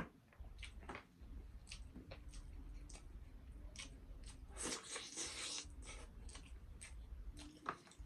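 Close-up wet chewing and lip-smacking of pork trotter and rice eaten by hand: a run of short sticky clicks, with a longer hissing suck about halfway through.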